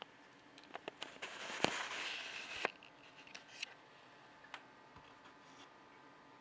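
Logitech G703 gaming mouse being clicked and handled, its left button being the one with a fault. A few sharp clicks, a brief scraping rustle about a second in with a louder click at its end, then scattered faint ticks.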